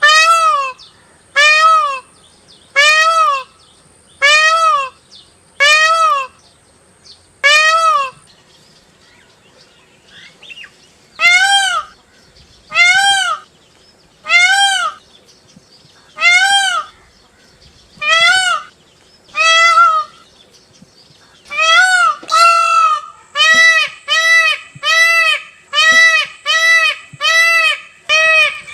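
Peacock calling loudly and repeatedly, each call a short cry that rises then falls in pitch. Six calls come about a second and a half apart, then after a short pause seven more. Near the end the calls speed up to about two a second.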